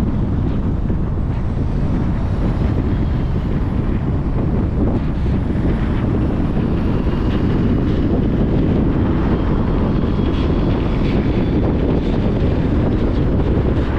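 Steady road traffic noise: an even rumble of tyres and vehicle engines with a hiss of wind, and a faint high whine that comes and goes in the middle.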